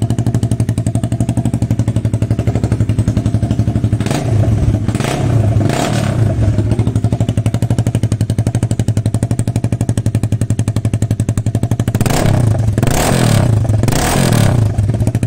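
Honda CBR250R motorcycle engine running loud with its stock silencer removed, idling steadily. The throttle is blipped a few times about four to six seconds in, and again from about twelve seconds.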